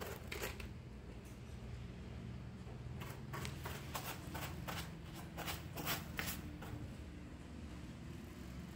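A cat raking grey granular litter with its front paws in a plastic litter box, burying its waste: a run of quick scratchy scrapes, a couple at the start and a cluster of them between about three and six and a half seconds in.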